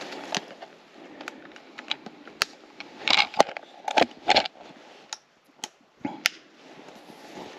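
Irregular small clicks, taps and rustles of something being handled close by, with a few louder scraping rustles a little past the middle.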